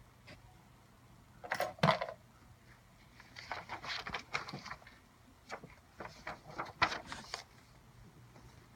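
A cat knocking about and rummaging among small household objects: scattered knocks and rattles, loudest as two sharp knocks about two seconds in, then two longer runs of clattering.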